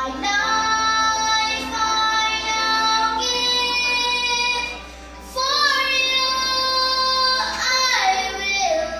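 A high solo voice singing slow, long held notes, with a short break about five seconds in.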